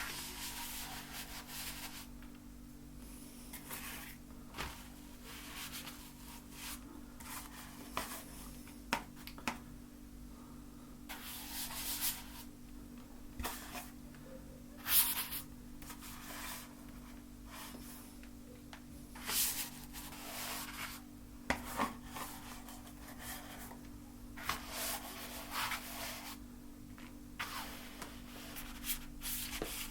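Paintbrush strokes scrubbing paint across a canvas, in irregular swishes with a few sharp taps, over a faint steady hum.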